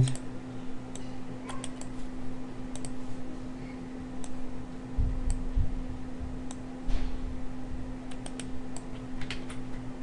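Scattered computer mouse and keyboard clicks over a steady low hum, with two dull low thumps about five and seven seconds in.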